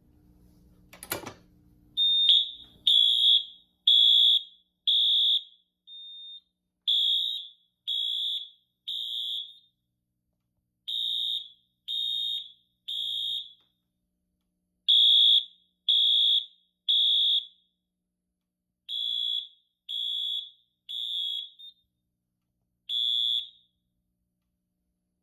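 Fire alarm sounder on a Simplex 4100U system sounding a high-pitched evacuation signal in the temporal-3 pattern: tones about once a second, mostly in groups of three with a longer pause between groups. A sharp click comes about a second in, just before the alarm starts, and the alarm stops near the end.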